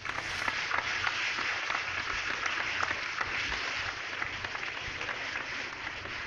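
Crowd applause, a dense patter of many hands clapping. It starts suddenly and eases off slightly toward the end.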